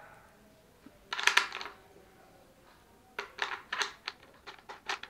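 Plastic GoPro tripod-mount adapter being screwed by hand onto a screw set in a motorcycle helmet's shell: a brief cluster of clicks about a second in, then a quick run of short clicks and scrapes from about three seconds in as it is turned down.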